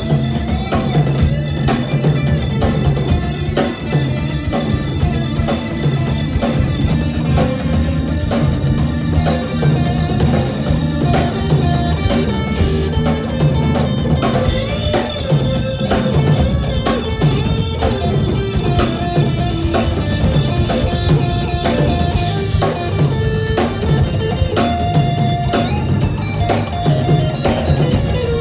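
Live rock band playing an instrumental passage: electric guitar over a steady drum kit beat, with keyboards.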